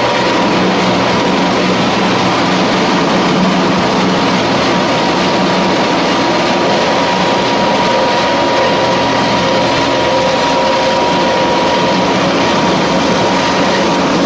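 Animal feed pellet mill running steadily while pressing pellets. Its continuous mechanical noise carries a constant low hum and a steady higher whine.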